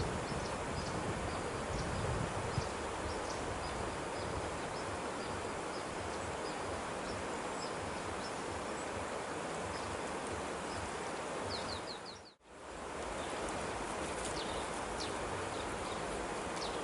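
Steady outdoor ambience with wind-like rustling noise and scattered short, high chirps. The sound drops out briefly about twelve seconds in, then returns.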